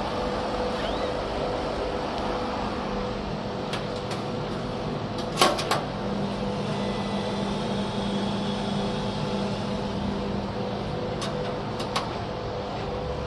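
Steady machine hum with a few sharp clicks and taps, the loudest about five and a half seconds in.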